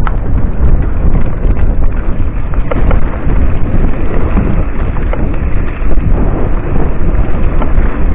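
Wind buffeting the microphone over the rumble of a mountain bike rolling along a rough dry dirt singletrack, with a few short knocks and rattles from the bike over bumps.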